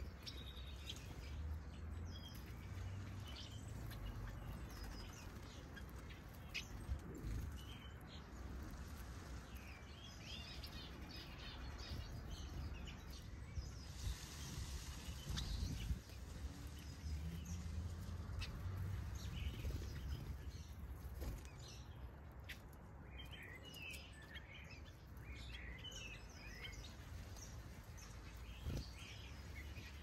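Small aviary birds (finches, weavers and bishops) chirping in many short, high calls scattered throughout, over a steady low rumble.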